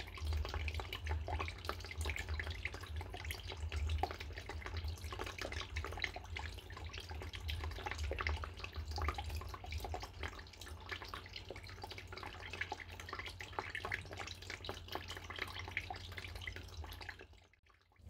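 Small tabletop water feature running: a thin stream of water trickling and splashing into its little pool, with a low hum underneath.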